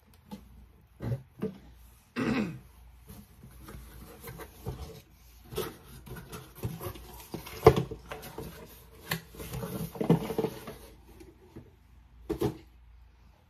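Objects being handled and moved about: scattered knocks, clicks and rustling, with one sharp knock about eight seconds in, and a few short voice-like sounds.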